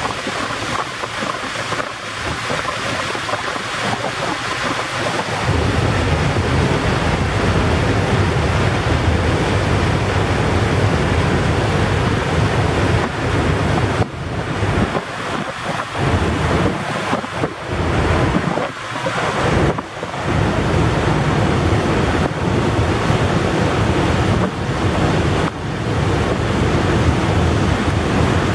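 Steady rush of wind and water. Wind buffets the microphone in a heavy low rumble from about five seconds in, dropping out briefly a few times.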